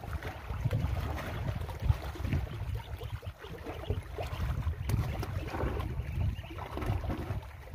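Gusty wind rumbling on the microphone, with small waves lapping against the shore rocks.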